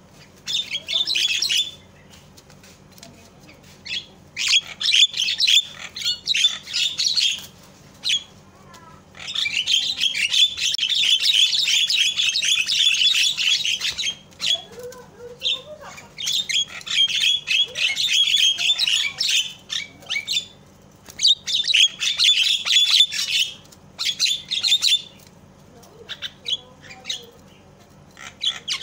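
Javan myna giving bursts of harsh, rapid chattering calls. There are about seven bursts of one to five seconds each, separated by short pauses, and the longest is near the middle.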